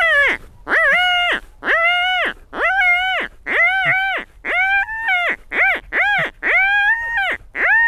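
Mouth-blown predator call giving a series of about ten short, high, wailing squeals, roughly one a second, each rising, holding and then falling in pitch. It imitates a hare in distress to lure a fox.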